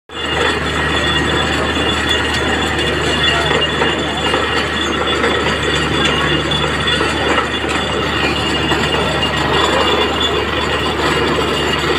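Truck-mounted borewell drilling rig running steadily at a fresh borehole: a constant low engine and compressor drone under a loud rushing noise as water is blown up out of the bore, the sign that the bore has struck water.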